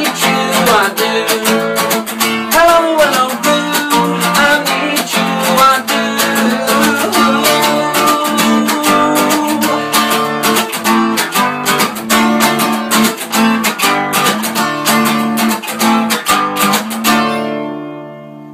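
Acoustic guitar strummed continuously, ending on a final chord that rings out and fades away near the end.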